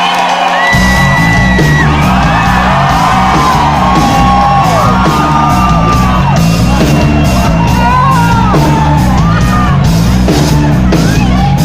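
Loud music with a heavy, pounding beat that kicks in under a second in, with whooping, gliding voices over it.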